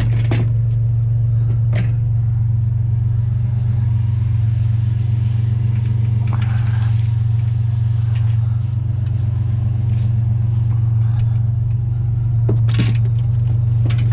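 Pickup truck engine idling steadily, with a few sharp metal clanks early on and a cluster of clatter near the end as scrap metal is loaded into the truck bed.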